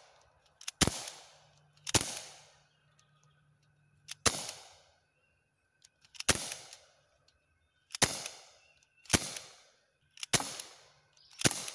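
A BB gun firing eight single shots, irregularly spaced one to two seconds apart, each a sharp report that fades within about half a second.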